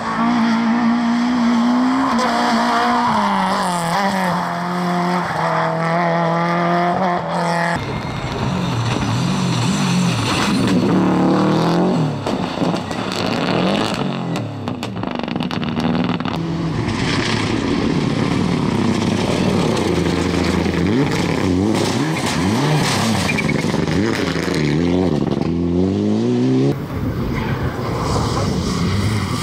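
Rally cars driven flat out on special stages, one after another: the engines rev hard, with the pitch climbing and dropping through gear changes and lifts, and the cars pass close by. A Subaru Impreza is heard sliding mid-way and a Citroën C3 Rally2 near the end. Each car's sound cuts off abruptly as the next one starts, about a quarter of the way in and again near the end.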